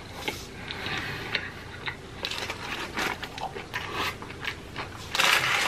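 Close-miked chewing of a mouthful of fried chicken sandwich: wet mouth sounds with many small crackles and crunches, and a louder noisy burst about five seconds in.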